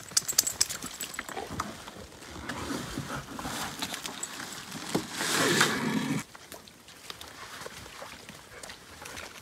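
Camping gear and a life jacket being handled at the side of a canoe: rustling of fabric and straps with a flurry of clicks and knocks at first, and a louder burst of rustling about five seconds in.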